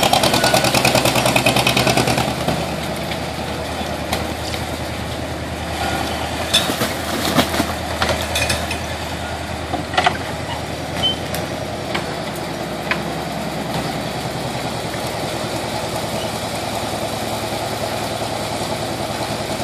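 Engine of dredging machinery running steadily, louder for the first two seconds, with scattered knocks and clanks between about six and thirteen seconds in.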